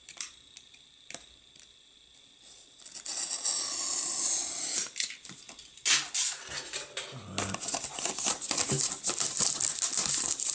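A cardboard box being cut open and handled: after a few light clicks comes a long scraping slice, a knife drawn through the box's seal, then dense crinkling and rubbing of cardboard and plastic packaging.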